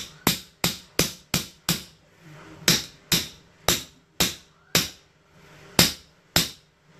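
Hammer blows on the top of a plastic melon slicer, driving its blades down into a whole watermelon: about a dozen sharp knocks, a quick run of five at about three a second, then slower, uneven strikes.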